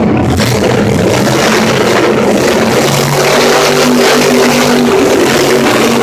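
Grave Digger monster truck's supercharged V8 engine running hard and revving as the truck does its tricks, loud across the arena, with rock music playing over it.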